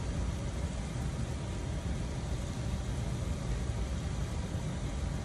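Steady rushing water from an open hose bib, with a low rumble under the hiss, as the pressure system is drained down toward the pump's cut-in pressure.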